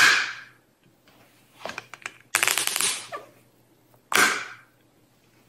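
A silicone lick mat slapped down onto a quartz countertop, then peeled up with a quick crackling run of its suction cups letting go, and slapped down again about four seconds in.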